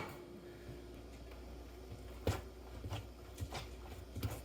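A few faint, scattered knocks and clicks over a low steady hum.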